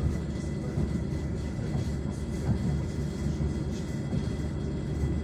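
Suburban electric train running, heard from inside the carriage: a steady low rumble with small irregular knocks and a faint thin whine held throughout.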